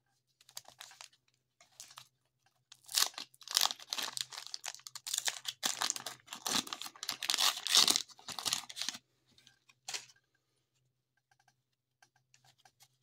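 Paper wrapper of a baseball card pack being torn open and crinkled by hand: a run of tearing and crumpling, loudest through the middle, that stops about ten seconds in.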